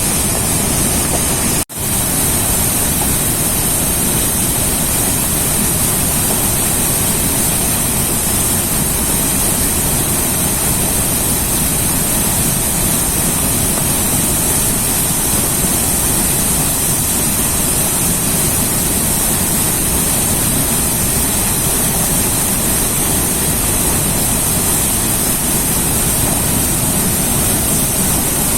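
River water rushing and rumbling in a loud, steady, unbroken roar of noise, cutting out for an instant under two seconds in.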